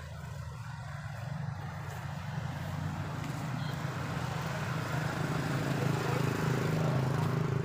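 A steady low engine hum from a motor vehicle, growing louder toward the end.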